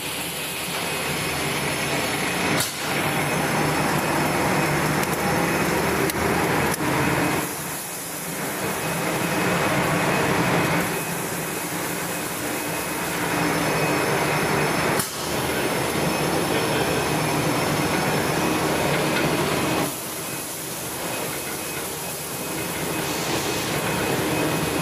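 Popcorn production line machinery running: a steady, loud mechanical din of motors and conveyors, with a few sharp clicks and sudden shifts in level along the way.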